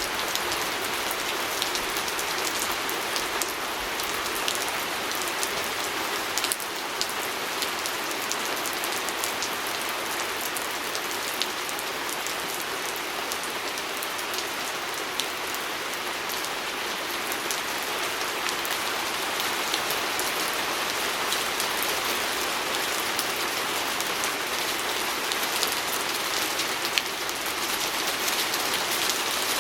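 Steady rain falling on a window: an even hiss with many scattered sharp ticks of single drops.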